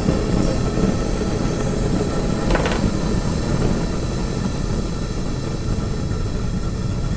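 Homemade propane forge burner, built from steel pipe and brass fittings, burning with a steady low rush of gas and flame on its first test firing. A brief click comes about two and a half seconds in.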